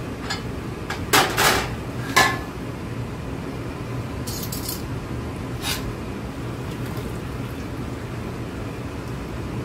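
Metal kitchen tongs clinking and scraping against a pressure-cooker pot while cooked greens are lifted out. There are a few sharp clinks: the loudest come about one and two seconds in, the second with a brief ringing, and lighter ones follow a few seconds later.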